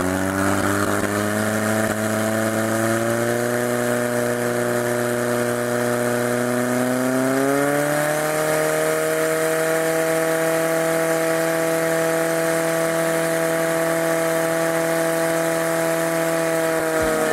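Portable fire pump's engine running hard as it pumps water to the hose lines, a steady drone whose pitch climbs about seven to eight seconds in and then holds.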